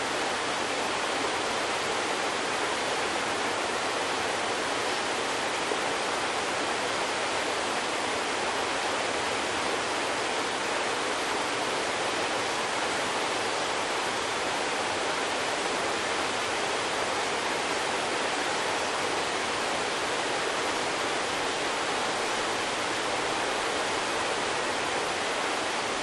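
Mountain stream rushing over rocks into a pool: a steady, even rush of water.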